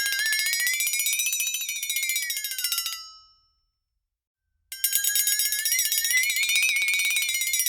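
Dinner bell rung very fast, a continuous rattling ring whose pitch wavers slowly up and down. It dies away about three seconds in, falls silent for a second and a half, then starts again abruptly.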